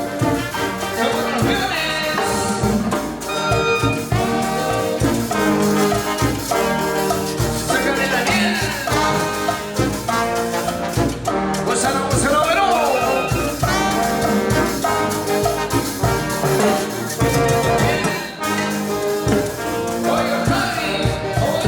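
Brass band playing an instrumental Peruvian cumbia passage: trumpets and trombones carry the melody over a steady percussion beat.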